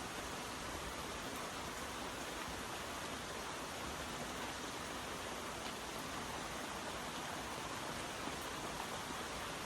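Steady rain falling, an even unbroken hiss with no single drops standing out.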